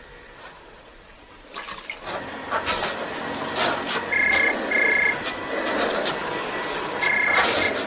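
Upright vacuum cleaner running over carpet, with some knocks, while a telephone rings in the British double-ring pattern: two short rings about four seconds in and the next pair starting near the end.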